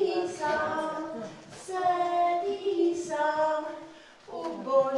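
A woman and young children singing a song together without accompaniment, in held notes and short phrases, with a brief pause about four seconds in.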